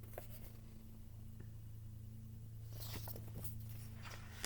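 A paper page of a picture book rustling briefly as it is turned, about three seconds in, with a few faint handling ticks over a steady low electrical hum.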